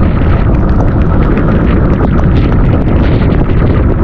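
Loud wind buffeting the microphone on a boat under way at sea, a steady, heavy rumble with the boat's engine and water noise underneath.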